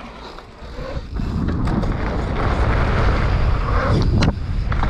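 Mountain bike rolling fast down a jump line, with wind rushing over the action camera's microphone. The rumble builds about a second in, and a brief knock sounds about four seconds in.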